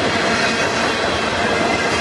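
Freight train of tank cars and covered hopper cars rolling past at close range: steel wheels running over the rails with a steady, dense rumble and rattle, a faint high wheel squeal running through it.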